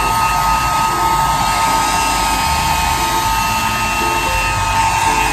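Handheld hair dryer running steadily: a loud rush of blown air with a steady whine from its motor and fan, blowing over wet hair.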